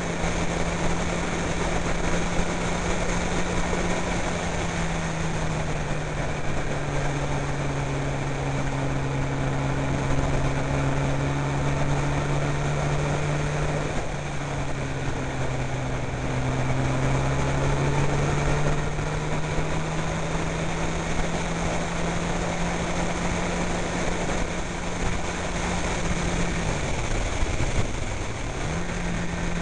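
Honda CBR sportbike engine running at steady cruising revs from an onboard camera, with wind rushing over the microphone. The engine note eases lower a few seconds in, climbs back in the middle, and near the end dips sharply and comes straight back up.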